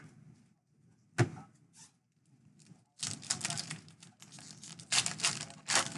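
A sharp knock about a second in, then a Donruss baseball card pack's wrapper being torn open and crinkled, loud and rough, over the last three seconds.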